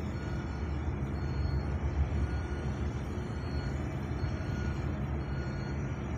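Single-drum road roller's diesel engine running with a steady low rumble, with faint short high tones repeating about once a second.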